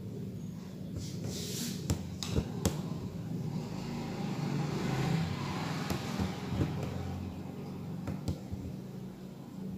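Several sharp clicks and taps from hands handling beads and the needle at the embroidery, over a steady low hum that swells and fades around the middle.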